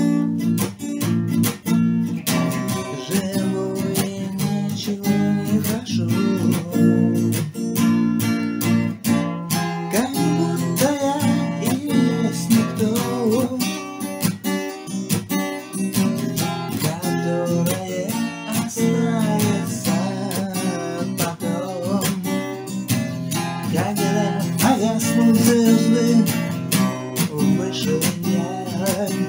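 Acoustic guitar strumming steadily in an acoustic song arrangement, played back from a Tecno Spark 9 Pro phone without processing.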